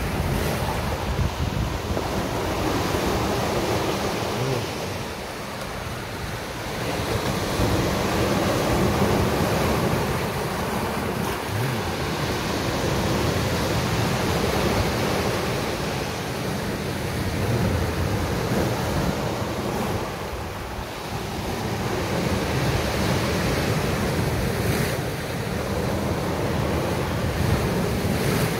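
Sea surf breaking and washing on a beach, a continuous rush of waves that swells and eases as each wave comes in, with wind buffeting the phone's microphone.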